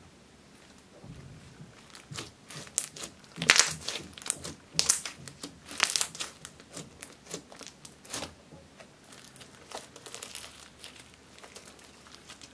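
Hands kneading and squeezing a large mass of pink slime mixed with small beads, giving sticky crackling and popping. The crackles are sparse at first, densest and loudest from about three and a half to six seconds in, then softer.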